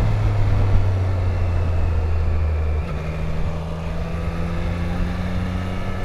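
A Triumph Street Triple's three-cylinder engine running under way, with wind noise on the microphone. About three seconds in, the engine note shifts and gets a little quieter, as with a gear change or easing off the throttle.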